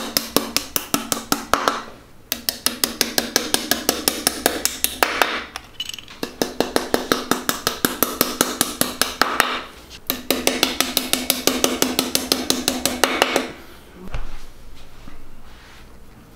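Hammer tapping cylinder head dowels into an engine block. The taps are rapid and light, about seven a second, in four runs of about three seconds each with short pauses between, and a ringing tone sounds under them. The tapping stops a couple of seconds before the end.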